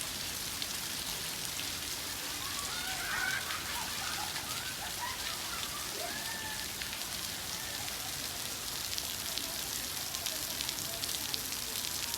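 Steady rain falling, a continuous patter of drops.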